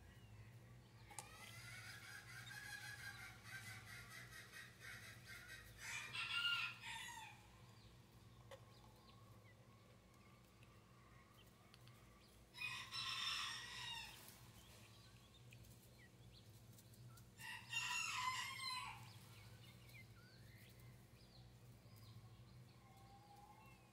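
A rooster crowing several times, faint, each crow lasting a second or two, over a low steady hum.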